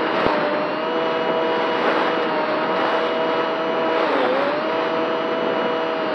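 RC airplane's motor and propeller running at a steady high-pitched whine over wind rush, heard from a camera mounted on the plane. The pitch dips briefly about four seconds in, as the throttle is eased, then comes back up.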